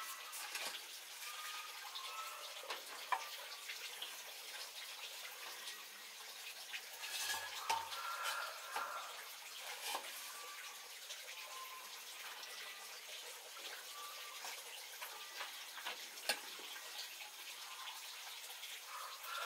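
Scattered light knocks and clicks as a bamboo pipe is handled and fitted against a metal rice-wine still, over a steady watery hiss, with short high chirps now and then.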